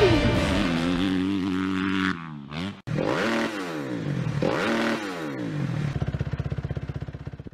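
Dirt bike engine revving up and down several times, its pitch dropping and climbing again, then settling into a low, fast chugging that fades out near the end.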